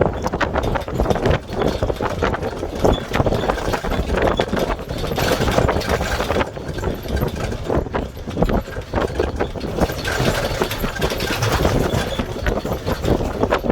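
Vehicle driving over a rough road, with many irregular knocks and rattles over steady road and engine noise.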